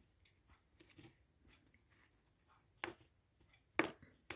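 Mostly quiet, with a few faint short clicks and rubs of a small steel flywheel key being turned between the fingers on a cloth; the clearest clicks come about three and four seconds in.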